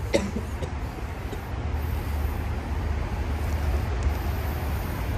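Road traffic rumbling steadily, a low rumble that grows a little louder about two seconds in.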